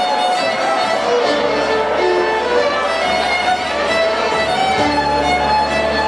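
Band music led by a fiddle playing a moving melody, with acoustic guitar backing.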